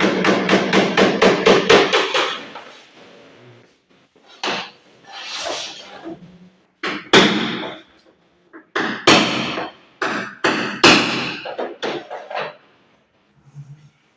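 A fast, even run of sharp knocks, about seven a second, for the first two seconds, then scattered separate knocks and clatters.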